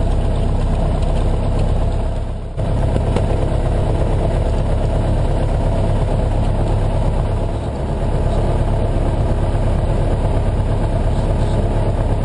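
Floatplane's piston engine and propeller running steadily on the water, with a brief dip in loudness about two and a half seconds in.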